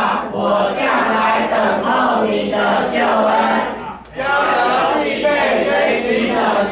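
Many children's voices chanting in unison in Mandarin, a group recitation of Bible verses in rhythmic phrases, with a short break about four seconds in.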